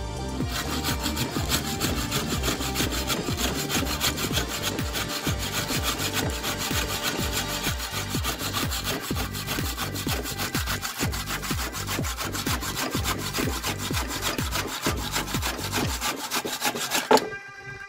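Restored hand saw cutting through a tree branch in steady, rapid back-and-forth strokes, the teeth rasping through the wood. The sawing stops near the end with one sharp knock as the cut goes through.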